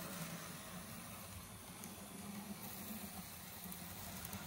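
Z-scale AZL SD40-2 model locomotive running on its track: the faint, steady whir of its small motor and the light rattle of its wheels on the rails, under a low hiss.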